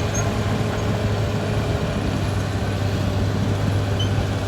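Caterpillar D6R XL bulldozer's diesel engine running steadily under load, a constant deep hum.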